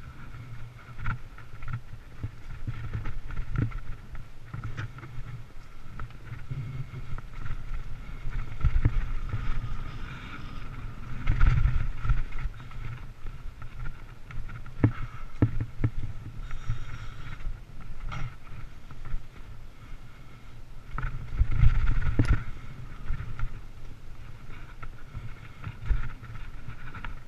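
Mountain bike riding over a rough dirt trail: a steady rumble of tyres and wind noise, with frequent knocks and rattles from bumps, and heavier jolts a little before halfway and again about four-fifths of the way through.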